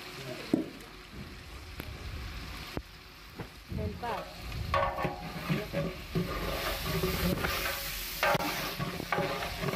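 Chicken pieces sizzling in oil and spice paste in a large aluminium pot, with a long-handled iron spatula stirring and scraping against the pot in irregular strokes. The sizzle grows stronger in the second half. The chicken is being fried down in the masala.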